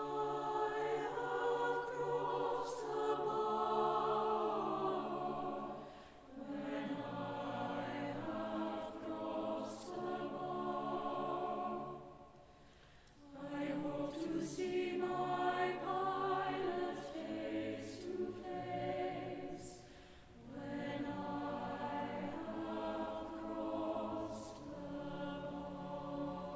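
Mixed choir singing a slow anthem in long sustained phrases, with short breaks between them, the longest about twelve seconds in.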